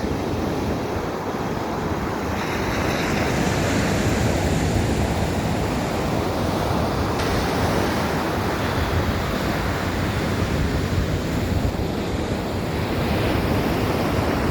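Atlantic Ocean surf breaking on the beach, a steady wash of waves that swells a little now and then, with wind buffeting the microphone.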